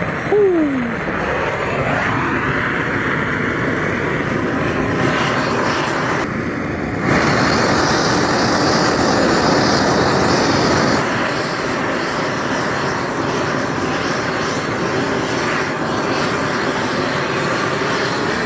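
Handheld gas-torch flamethrower burning, a steady loud rushing roar of the open flame jet, louder for a few seconds in the middle.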